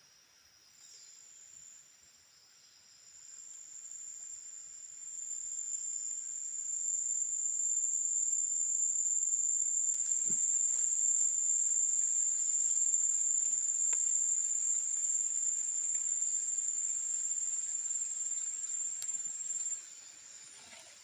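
An insect's continuous high-pitched shrill, one steady tone that grows louder over the first several seconds, holds, then cuts off suddenly near the end. A faint knock is heard about halfway through.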